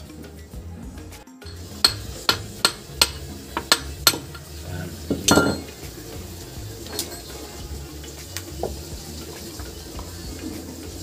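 Steel parts clinking and a drive chain clattering as the chain and sprockets are handled inside an opened Suzuki Multicab 4x4 transmission case: a quick run of sharp clinks, a longer rattle about five seconds in, then a few lighter clicks.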